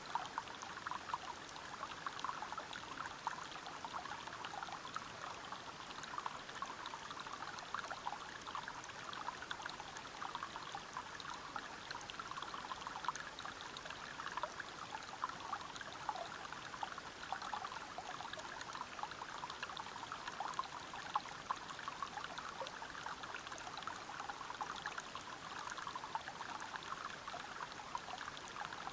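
River water flowing and splashing over rocks: a steady babble made of many small splashes, unchanging throughout.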